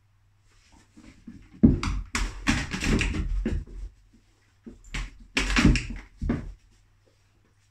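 Empty clear plastic storage tub clattering and thudding on a carpeted floor as a dog noses and paws it, tipping it onto its side. Two bouts of knocking: one starting about one and a half seconds in and lasting about two seconds, another around five seconds in.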